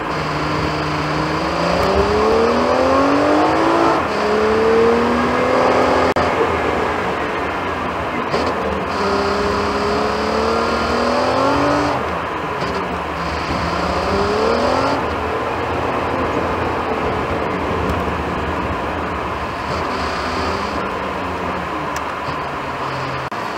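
Car engine revving up through the gears: its pitch climbs over a few seconds, drops at a shift and climbs again, about three times, then settles to a steadier note in the second half.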